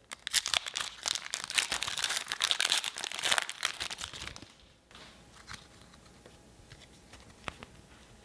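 Foil Pokémon booster pack wrapper crinkling as it is torn open, a dense crackle for about five seconds. After that it goes much quieter, with a few faint clicks as the cards are handled.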